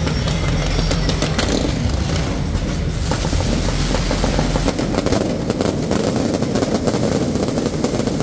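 Fireworks going off in a dense, continuous volley of crackling pops and bangs, thickest from about three seconds in.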